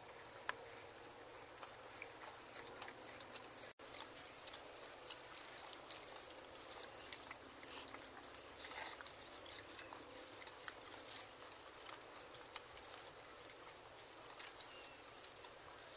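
Dogs licking and lapping at frozen dog ice cream in plastic bowls, heard faintly as many small wet clicks and ticks. The sound cuts out for an instant a little under four seconds in.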